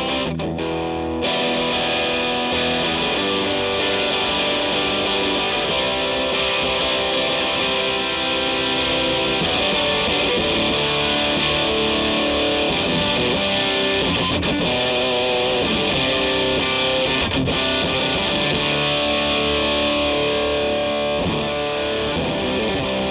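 Electric guitar played through the B1 Fuzzstortion, a silicon Tone Bender-style fuzz pedal based on the Catalinbread Katzenkönig, giving heavily distorted, sustained notes and chords. The sound gets fuller about a second in.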